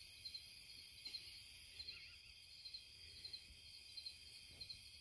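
Faint night insects chirping steadily, a high repeating pulse.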